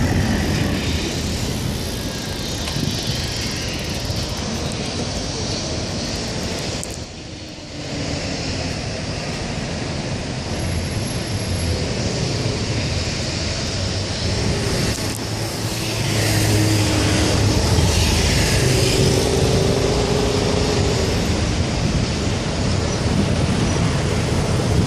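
City road traffic heard from a bicycle: motor vehicle engines running close by over a steady wash of road noise, briefly quieter about seven seconds in. A lower, stronger engine hum comes in a little past halfway as vehicles idle and pull up alongside.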